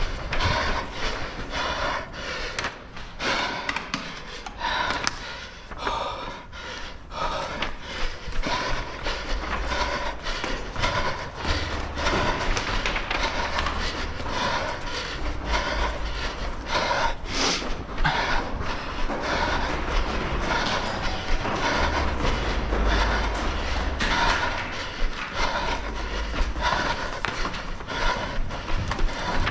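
Quick running footsteps on a hard indoor floor, heard close up through a head-mounted camera, with the runner's breathing.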